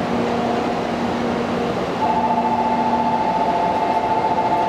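Container freight train hauled by an EF64 electric locomotive moving off slowly, its wagons rolling past close by. A steady higher tone joins about two seconds in and the sound gets a little louder.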